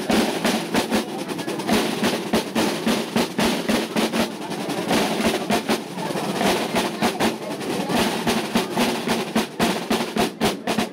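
A corps of field snare drums with brass shells and red-and-white hoops playing a marching cadence in unison, with rolls and fast strokes; near the end the strokes become more separate and distinct.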